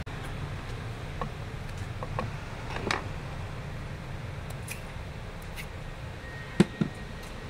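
Knife cutting peeled fruit held in the hand, pieces falling into a wooden rujak mortar: scattered light clicks of the blade, then two sharp knocks close together about two-thirds of the way through. A steady low hum lies underneath.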